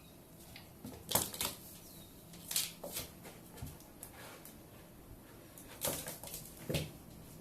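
Two house cats play-wrestling: irregular scuffles, thumps and rustles in bunches, loudest at about a second in and again near the end.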